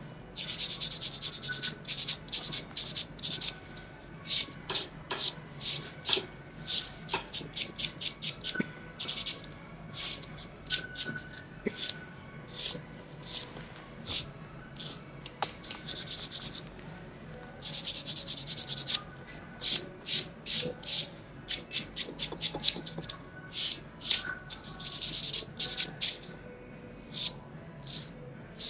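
A handheld nail file scraping across fingernails in quick back-and-forth strokes, shaping and smoothing the nails. The strokes come in rapid runs, broken by a few longer, unbroken passes lasting a second or so.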